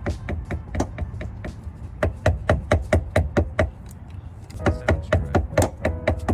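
Rapid hammer blows, about three to four a second with a short lull in the middle, driving a polyurethane insert into a transmission mount; the insert is too tight to go in easily.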